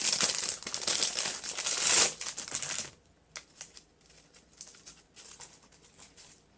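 Plastic packaging crinkling loudly for about three seconds as it is handled, then a few faint clicks and rustles.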